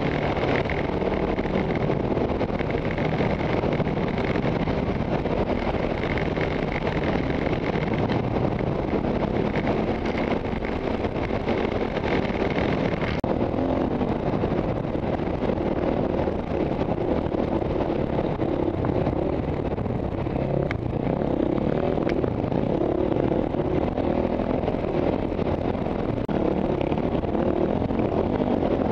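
Single-cylinder four-stroke KTM trail bike engine running steadily under way on a dirt track, heard from the rider's helmet camera.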